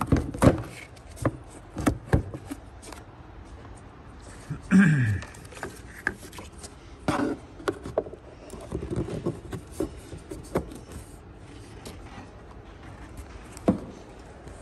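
Scattered clicks, knocks and scrapes of hand work on a truck's front end as retaining clips are worked out, with one short falling pitched sound about five seconds in.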